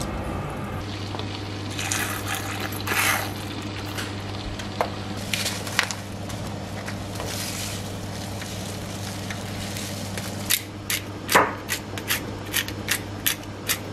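Seasoning being added to a pot of tomato broth, over a steady low hum: rustling and scraping in the first half, then a run of sharp ticks, about three a second, near the end as black pepper is sprinkled into the pot.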